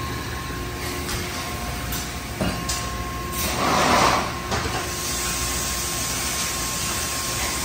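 Industrial machinery running with a steady low hum and a faint high whine, a few sharp clicks, and a louder burst of hiss about four seconds in.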